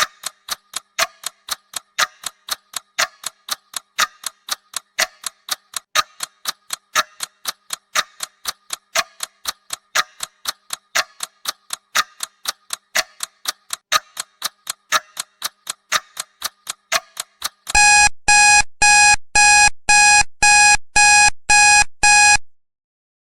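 Timer's clock ticking at about two ticks a second. Near the end the ticking stops and a loud end alarm beeps about eight times in quick succession, then cuts off: the countdown has run out.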